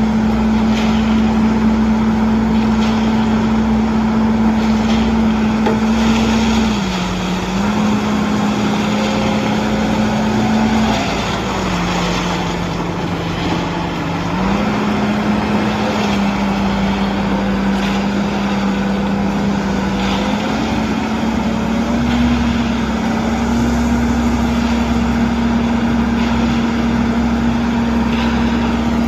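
Diesel engine of a self-loading concrete mixer running steadily at high revs. Its pitch dips briefly about seven seconds in, drops again for a few seconds, then climbs back up as the load on it changes.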